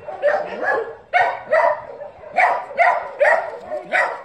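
A dog barking repeatedly, about two sharp barks a second, some coming in quick pairs.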